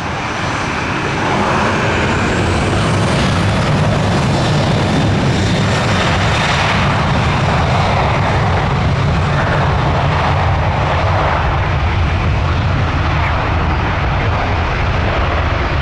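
Southwest Boeing 737's twin jet engines spooling up, with a faint rising whine in the first seconds, then a loud, steady rumble and roar of jet blast as it goes to takeoff thrust and rolls down the runway.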